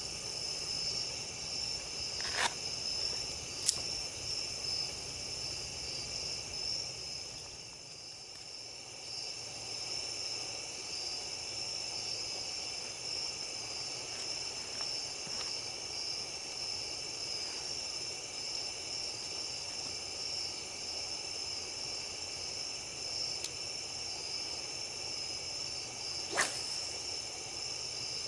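Steady high-pitched chorus of night insects, crickets among them, trilling without a break. Three sharp clicks cut through it, two within the first few seconds and one near the end.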